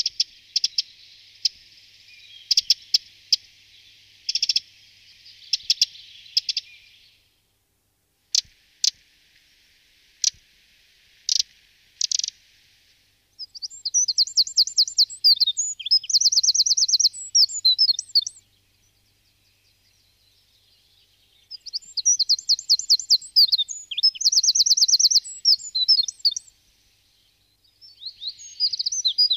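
Eurasian wren singing: two fast, trilling song phrases about five seconds each, the first starting about halfway through, and a third starting near the end. Before them come sharp, scattered ticks over a hiss.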